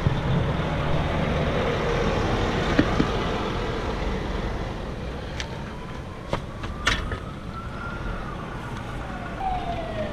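Steady road traffic noise from passing vehicles, with a few sharp knocks about five to seven seconds in. In the second half a siren begins to wail, slowly rising and falling in pitch.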